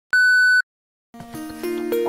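A single steady high electronic beep lasting about half a second, the lead-in tone on a commercial's slate, then a moment of silence. About a second in, gentle instrumental music begins, with sustained notes entering one after another.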